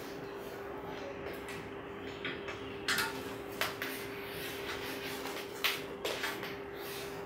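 A fabric backpack being handled and packed: rustles and short scrapes as things are slid into it, sharpest about three seconds in and again near six seconds, over a steady low hum.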